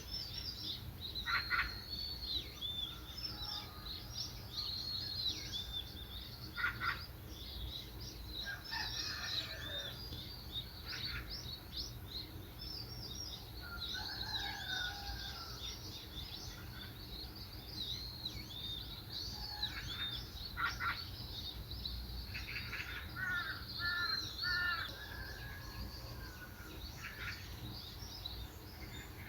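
Several small songbirds chirping and twittering at once in a dense, continual chorus, with occasional louder, lower calls, over a steady low background rumble.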